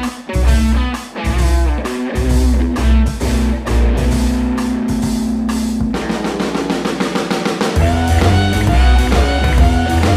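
Rock music with drums and electric guitar. The low bass and kick drum drop out for a couple of seconds about midway, then the full band comes back in.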